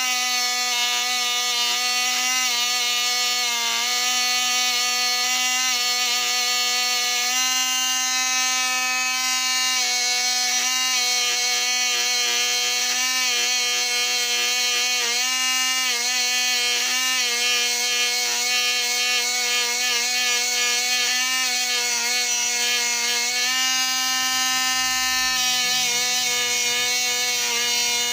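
Small handheld rotary tool running steadily at high speed, cleaning model train locomotive wheels and rollers. Its whine dips slightly in pitch a few times as it is pressed against the part.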